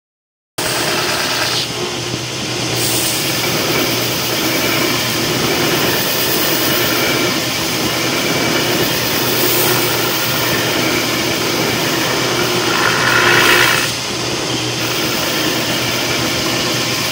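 Long belt sander running with a steady motor hum, its abrasive belt grinding a metal iceboat runner to shape and sharpen it. The sound cuts in abruptly just after the start, and the grinding swells louder and harsher for about a second near the end.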